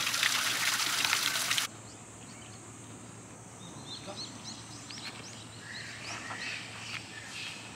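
Water trickling and splashing steadily into a pond, cut off abruptly after about a second and a half. Then quieter open-air background, where a bird calls in short, rising chirps, several a second, for a few seconds.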